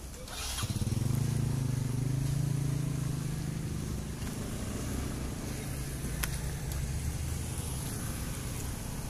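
A motor vehicle's engine running close by: a steady low hum that swells about a second in, then eases off a little.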